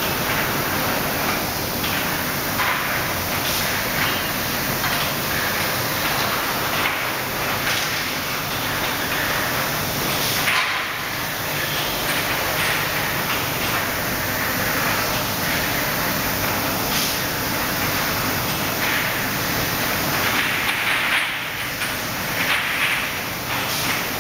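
Industrial washing machine and sterilizing-tunnel line running: a steady hiss of machinery and spraying, with light knocks now and then.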